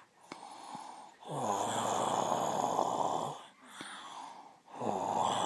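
A woman snoring in her sleep: two loud snores about two seconds long each, the first starting about a second in and the second near the end, with quieter breathing between them.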